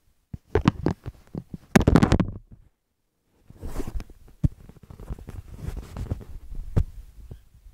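Handling noise from a phone being moved about and covered: irregular knocks and rubbing on the microphone, cut by a moment of dead silence about two and a half seconds in.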